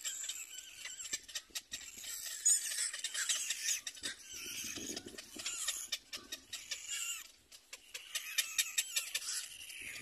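Cormorant chicks begging for food at the nest: a dense run of high squealing calls mixed with rapid clicking, and a lower, rougher sound for about a second near the middle.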